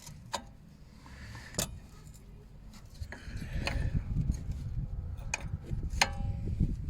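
Metal tools clinking against the anti-roll bar link's bolt as it is undone with a ratchet and spanner: about five sharp, separate clinks spread over several seconds. A low rumble builds from about halfway through.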